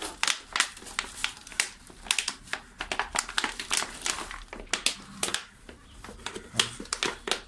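Thin plastic PET bottle crackling and crinkling in irregular sharp crackles as hands grip and handle it, with soil crumbled into it.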